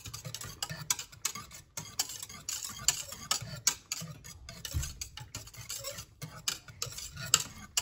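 Wire whisk stirring a semolina mixture for fufu in a stainless steel pot, its wires clicking and scraping against the pot in a quick, irregular patter as the mixture starts to thicken.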